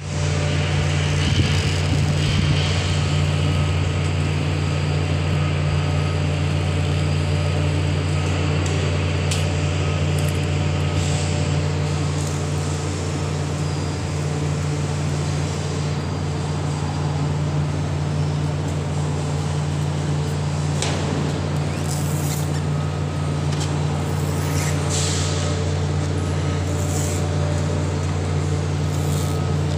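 Steady, loud low hum of sugar mill machinery running, with scattered light clicks and scrapes from hand tools working a rubber conveyor belt.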